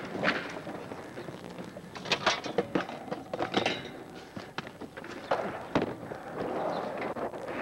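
Camcorder handling noise: the microphone knocking and rubbing against a jacket as the camera is carried on the move, a string of irregular thuds and clicks.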